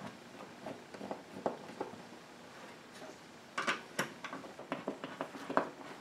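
Faint scattered clicks and scrapes of a hand screwdriver starting screws through a wooden coat rack into drywall anchors, with a cluster of sharper clicks a little past halfway.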